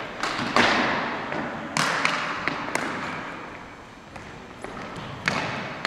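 Ball hockey play: sticks and the hard plastic ball knocking, a series of sharp, echoing cracks. The loudest comes about half a second in, with a quieter lull in the middle before another crack near the end.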